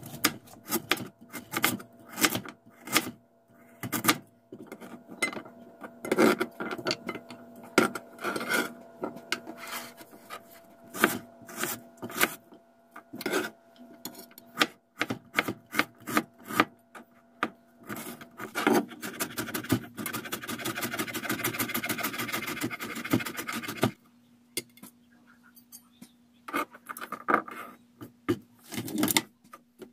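Kitchen knife chopping vegetables on a plastic cutting board: irregular single knife strikes, then a fast run of close strokes for about five seconds past the middle, as garlic is minced.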